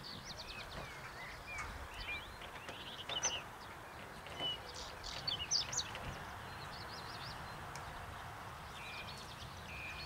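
Several small birds chirping and singing in quick, sweeping calls, loudest a few seconds in, over a steady low rumble of wind on the microphone.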